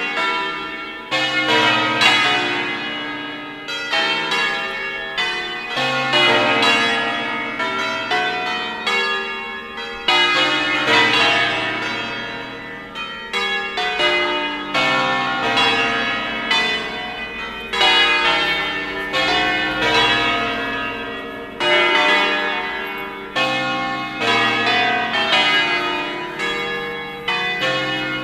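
A ring of eight bronze church bells tuned in B-flat, cast by Pruneri and Ottolina, pealing in a festive sequence as they swing on their wheels. Strike follows strike several times a second in changing pitches, and each stroke rings on under the next.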